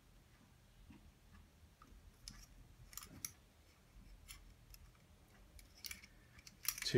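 A few faint, scattered clicks and taps of small plastic and metal objects being handled: a USB memory stick and a screwdriver turned over in the hands.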